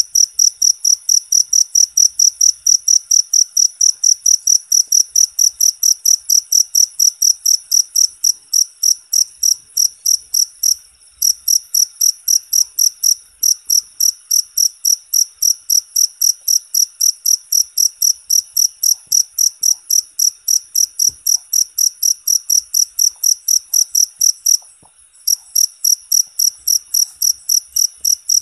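Cricket chirping loudly and steadily in a high, shrill pitch, about four evenly spaced chirps a second. It breaks off briefly twice, about eleven and twenty-five seconds in.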